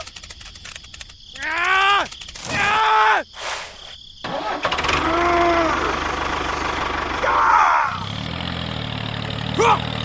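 Two short falling cries, then a motor starting up and running with a steady low hum that deepens and grows stronger about eight seconds in.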